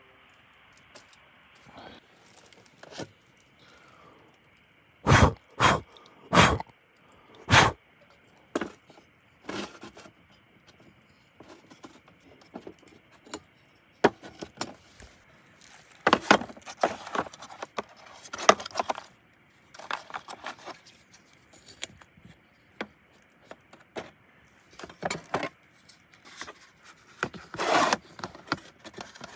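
Camp cookware and utensils being handled: scattered metallic clinks, knocks and scrapes, with four sharp knocks between about five and eight seconds in, then bursts of clatter later on.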